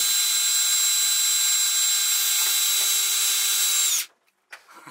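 Cordless drill boring a small pilot hole into a steel truck frame rail, running steadily with a high whine over a metal-cutting hiss, then cutting off about four seconds in. The bit is barely denting the frame.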